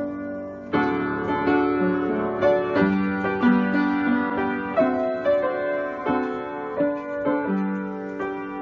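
Solo piano playing a slow piece in chords, each chord struck and left to ring before the next.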